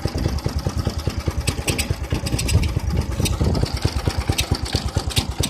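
Go-kart's small engine idling steadily with even firing pulses, and a few light clicks now and then.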